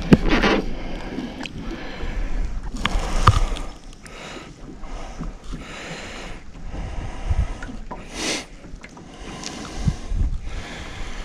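Wind buffeting the microphone over water lapping against a small fishing boat. A sharp knock comes right at the start, then a few shorter knocks and gusts.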